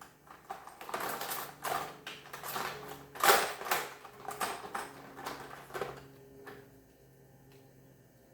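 Hands rummaging among small hard objects, searching for a marker: irregular clattering and rustling, with one louder knock about three seconds in. It stops after about six seconds, leaving a faint hum.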